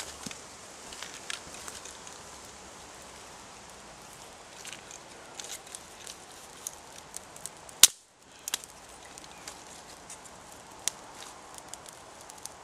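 Small fire of slightly damp twigs crackling as it catches over burning gel fuel. There is a steady hiss with scattered pops and one sharp crack about two-thirds of the way through.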